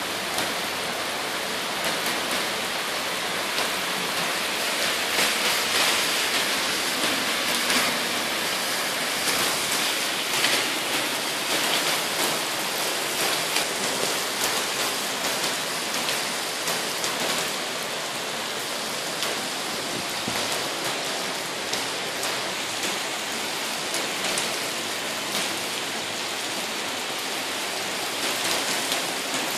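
Heavy rain pouring onto a wet paved street: a steady hiss filled with the splashes of countless drops.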